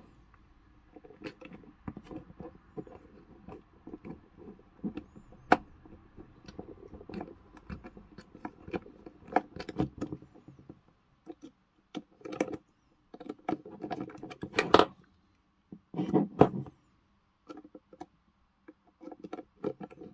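Precision screwdriver working tiny screws out of a plastic security-camera chassis: irregular small clicks and scratches of the bit and hand on the plastic, with a few louder knocks.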